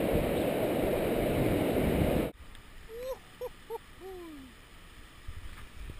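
Wind rushing over a helmet-mounted GoPro during a bungee jump, cutting off abruptly about two seconds in. After that come four short, soft pitched calls, the last one longer and falling in pitch.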